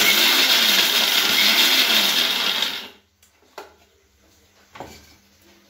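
Electric mixer grinder run in one pulse of about three seconds, grinding almonds, cashews and pistachios into powder, then cutting off. Two light knocks of the steel jar follow.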